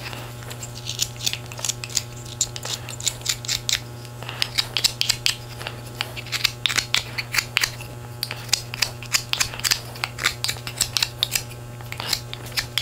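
Knife whittling a small piece of wood by hand: an irregular run of short, crisp shaving cuts, several a second, over a steady low hum.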